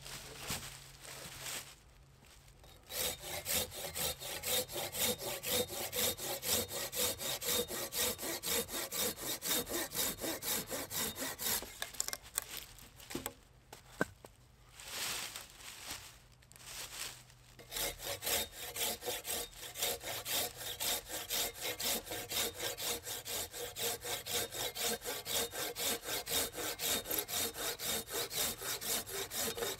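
Silky folding saw cutting through a dead branch by hand, in brisk, even back-and-forth strokes. The sawing stops for a few seconds around the middle, with a single sharp click, then starts again.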